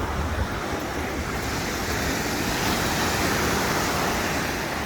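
Pacific Ocean surf washing up the beach at the water's edge, a wave swelling to its loudest about three seconds in and then easing off.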